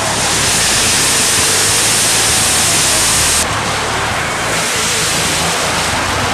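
Twin jet engines of a Boeing F/A-18E/F Super Hornet running at high power on a carrier deck: a loud, steady rushing roar. Its hiss drops suddenly about three and a half seconds in, while the roar carries on.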